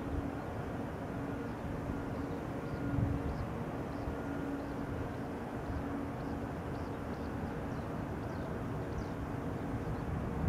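Boeing 777-200 jet airliner on final approach, its engines a steady rumble with a few held humming tones as it comes in toward the runway.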